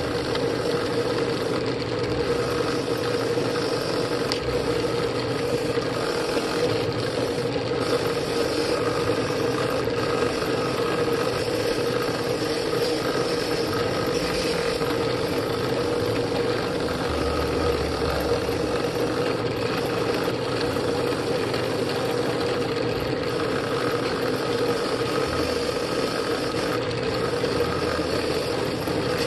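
Drill press running steadily with a wire cup brush in its chuck, a constant motor hum under the scratchy hiss of the wire bristles scrubbing rust off a steel adjustable wrench held against it.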